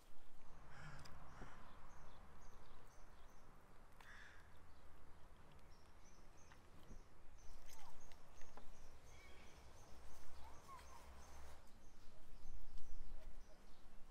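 A person eating quail with her hands: soft tearing, biting and chewing sounds with small clicks. Birds chirp in the background as a run of short, high, repeated chirps, over a low steady rumble.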